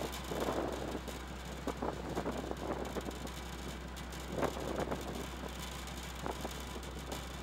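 Steady low engine hum of a ship under way at sea, with irregular gusty rushes of wind and sea noise over it, strongest about four and a half seconds in.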